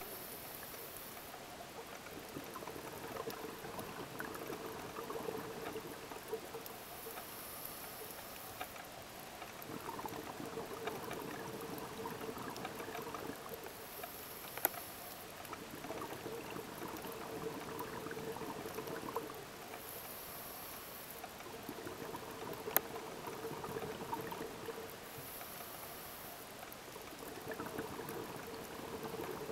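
Scuba diver breathing underwater through a regulator: a short hiss on each inhale, then several seconds of bubbling exhaust on the exhale, repeating about every six seconds. Two sharp clicks stand out, one around the middle and one later on.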